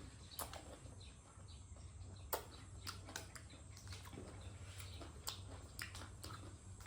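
A person chewing and smacking their lips while eating close to the microphone: irregular sharp mouth clicks and crunches, one louder click a little past two seconds in.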